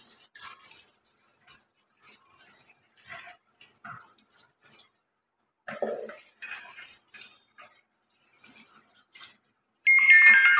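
Light clicks and knocks of cookware being handled, with a faint on-and-off hiss. Near the end comes a loud metallic clang that rings on for over a second in several tones: a steel lid or utensil striking a cooking pan.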